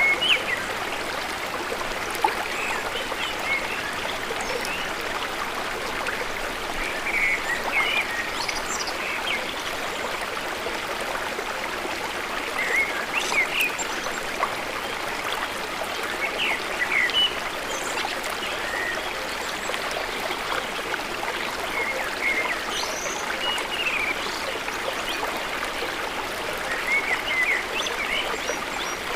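Steady rush of running water, like a stream, with short bird chirps scattered throughout.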